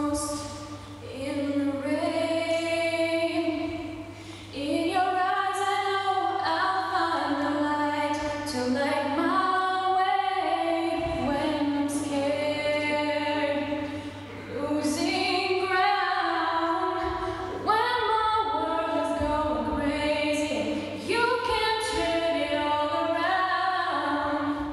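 A young woman singing unaccompanied into a handheld microphone, a slow melody of long held notes with vibrato and short breaths between phrases, over a steady low hum.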